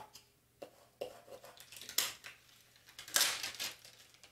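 Clear vinyl transfer tape being peeled off a chalkboard and handled: a few sharp ticks and taps, then a longer, louder rustle of the plastic sheet about three seconds in.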